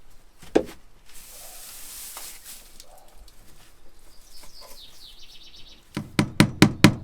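A hammer driving a nail: a quick, even run of sharp blows, about six a second, starts near the end. Earlier there is a single knock about half a second in and a spell of rustling.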